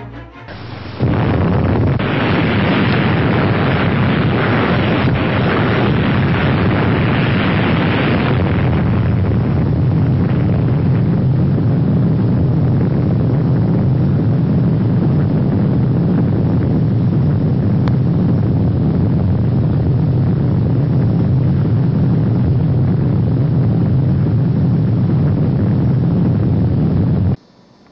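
Rumble of a huge explosion. It sets in loudly about a second in, is brightest for the first several seconds, then settles into a steady deep rumble that cuts off suddenly near the end.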